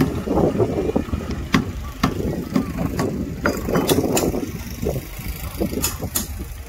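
An engine running with a steady low rumble, with several sharp metallic knocks and men's voices mixed in.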